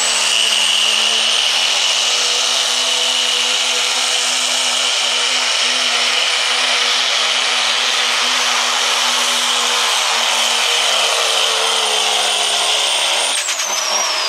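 Dodge Ram 2500's turbocharged Cummins diesel at full throttle, pulling a weight-transfer sled. A high turbo whistle is held steady over the engine noise, then winds down quickly about a second before the end as the throttle is let off.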